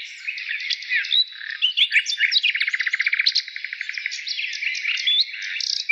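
Several small songbirds chirping and twittering at once in quick, overlapping high notes, with a fast trill about halfway through.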